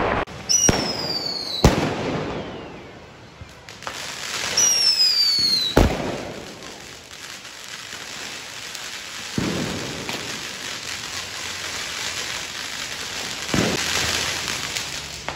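Street fireworks: twice a whistling firecracker gives a falling whistle that ends in a sharp bang. Then a ground fountain firework hisses steadily, with two more bangs going off.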